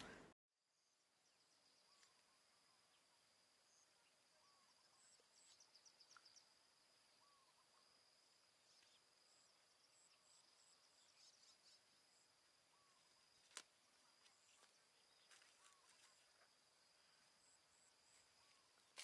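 Near silence: faint forest ambience with a steady high insect tone and scattered soft chirps, and one sharp click about two-thirds of the way through.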